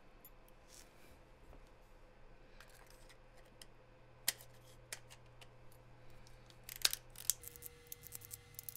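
Faint clicks and taps of the metal parts of a Nikon 35mm f/1.4 AI-s lens being handled and fitted together by hand, with a few sharper clicks around four to five seconds in and near seven seconds.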